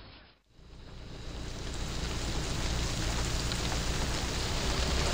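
Rain falling on a car's windscreen, fading up after a brief near-silent gap about half a second in and then steady, with a low rumble underneath.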